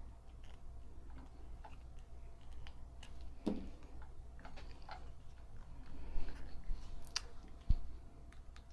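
Small metal parts of a Singer 223 sewing machine's handwheel clutch being handled and screwed together: scattered light clicks and taps, with a few sharper knocks midway and near the end.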